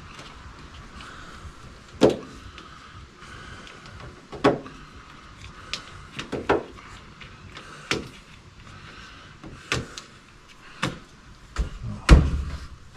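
Push-in clips of a rubber door weatherstrip being snapped into their holes in a 2002 Ford F-350's door. About ten short, sharp snaps come at uneven gaps, and the loudest is near the end.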